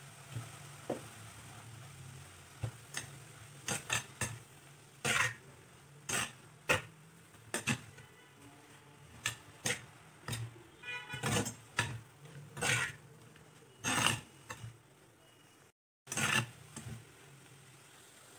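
Steel spatula scraping against a pot while stirring a dry stir-fry of ivy gourd leaves and grated coconut: irregular short scrapes, sometimes two or three a second.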